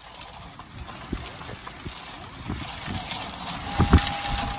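Strong thunderstorm wind, gusting at about 45–50 mph, buffeting the microphone in irregular low thumps, the loudest about four seconds in. A short steady high tone sounds near the end.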